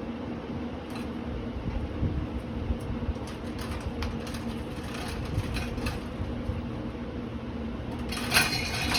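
Litex Schuster ceiling fan running, its motor humming steadily under an uneven low rumble, with scattered knocks and a louder rattling burst near the end.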